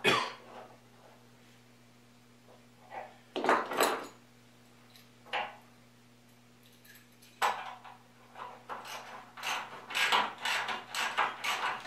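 Metal clinks and knocks of a bed bolt, washer and nut being worked at a wooden bed rail-to-post joint, then a quick run of clicks, several a second, in the last few seconds as the nut is tightened on the bolt.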